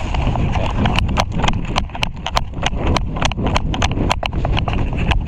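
Airsoft guns firing in rapid single shots, about four sharp cracks a second starting about a second in, over a steady low rumble.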